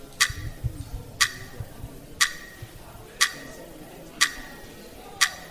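Quiz timer ticking once a second, six sharp ticks, counting down the contestants' answering time.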